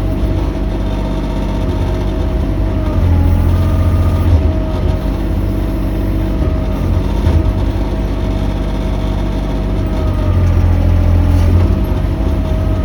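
Mini excavator's diesel engine running steadily, with a held whine above the engine note and the low rumble swelling twice as the machine works.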